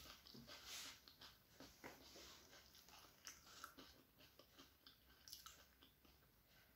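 Faint chewing of a crumb-coated egg devil, with scattered small mouth clicks and soft crunches.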